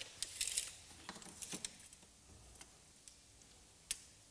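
Faint clicks and light knocks from a hydraulic bottle jack's handle being pumped, raising the rear suspension arm toward ride height. A single sharper click comes near the end.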